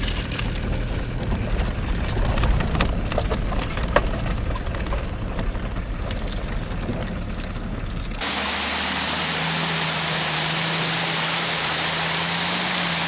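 A 4x4 driving slowly on a gravel track, heard from inside the cab: low engine and tyre rumble with scattered clicks of stones. About eight seconds in it cuts sharply to the steady rush of water pouring from a small waterfall.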